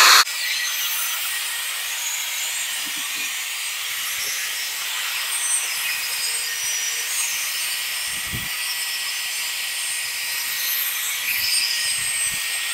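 Corded electric drill spinning a 500-grit sanding pad against a plastic headlight lens: a steady motor whine with a scratchy sanding hiss. It is loud for a moment at the start, then drops to an even level.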